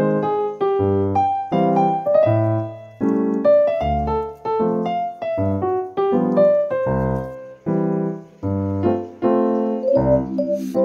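Background piano music: a light, quick melody over chords and low bass notes.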